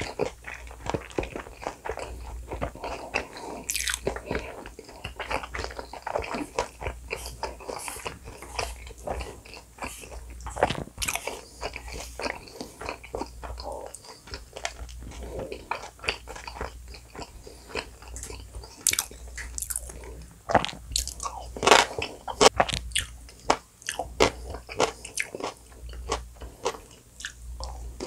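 Close-miked eating sounds: a person chewing and crunching mouthfuls of gan-jjajang black bean sauce with onion chunks and a fried dumpling, with many irregular wet crackles and crunches. The loudest run of crunchy bites comes about three quarters of the way through.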